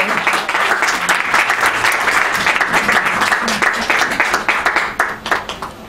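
Audience applauding, many hands clapping together, thinning and fading out near the end.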